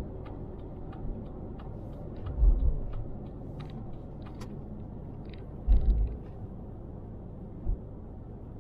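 Road noise inside a moving car: a steady low rumble, with three heavy low thumps and scattered light ticks.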